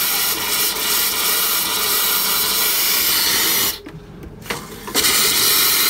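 Compressed air hissing out of an open RV water fixture as the water lines are blown out, pushing the last water from the plumbing. The hiss cuts off abruptly nearly four seconds in and comes back about a second later.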